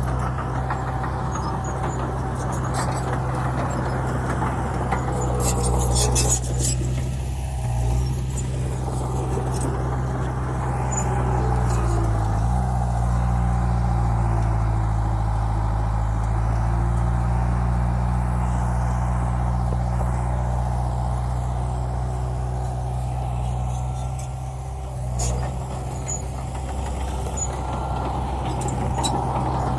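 Bulldozer's diesel engine running steadily under load. Its pitch dips and recovers about twelve seconds in. Sharp knocks come around six seconds in and again near twenty-five seconds.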